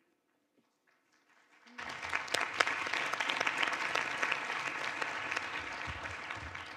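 Audience applauding, starting about two seconds in after a near-silent pause and tapering off near the end.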